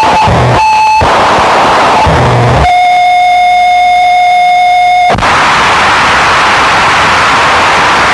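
Harsh noise music: a loud, dense wall of distorted noise. About two and a half seconds in, it cuts out for a single steady electronic tone that holds for about two and a half seconds, then the noise wall comes back.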